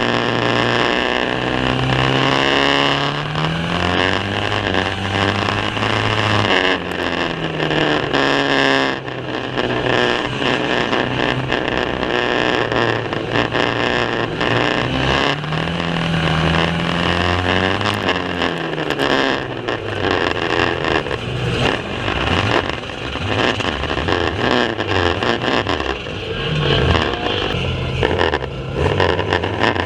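Several banger racing cars' engines running hard around the track, their notes rising and falling as they rev up and lift off, over a constant noisy din with frequent short knocks.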